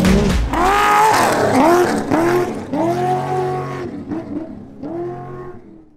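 Off-road race truck engines revving, the pitch rising and falling several times, with a deep rumble that stops about a second in. The sound fades out near the end.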